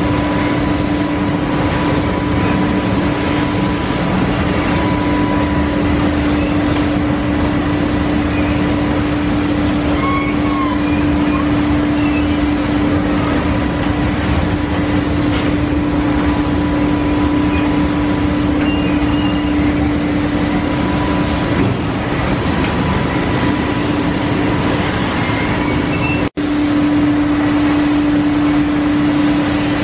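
Haas wafer baking line running: steady machinery noise with a constant hum, cut off for an instant about three-quarters of the way through.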